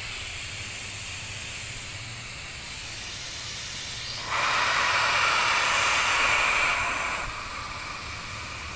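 High-pressure water spray from an HTP sprayer's gun nozzle, hissing steadily, with the electric triplex piston pump running below full speed. The hiss grows louder about four seconds in and eases back a few seconds later.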